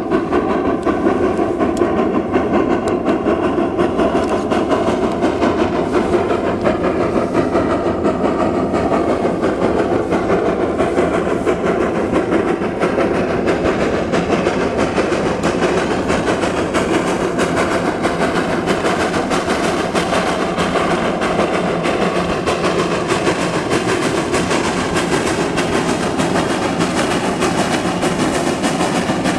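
Virginia & Truckee train hauled by steam locomotive No. 29 rolling along the track: a steady rumble with the clicking of steel wheels over the rails.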